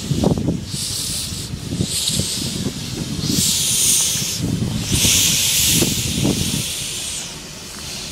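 Narrow-gauge steam locomotive of La Trochita (Viejo Expreso Patagónico) moving slowly, its steam exhaust hissing in a series of about five chuffs, the later ones longer, over a low rumble.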